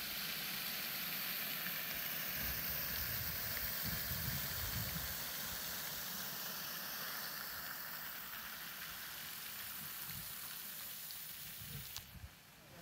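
Fountain jet spraying and splashing into its pool: a steady hiss of falling water that cuts off abruptly near the end.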